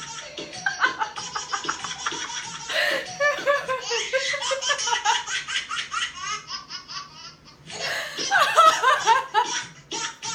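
Baby-laughter ringtone: a baby laughing in quick, high-pitched bursts, easing off briefly about seven seconds in before a louder run of laughs.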